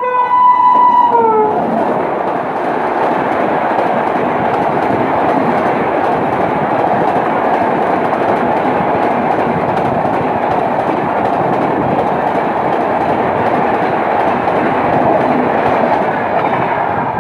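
Locomotive horn sounding one loud blast of about a second, its pitch dropping as it ends. Then an express passenger train passes at speed close by, a steady loud rush and rumble of coaches over the track.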